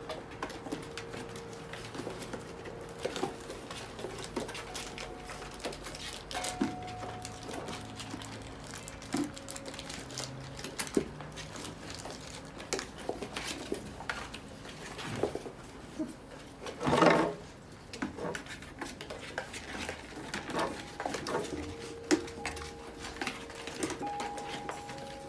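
Five-week-old whippet puppies scrambling in and over cardboard boxes: scattered taps, scrapes and rustles of cardboard and of paws on the floor, with one louder burst about two-thirds of the way through.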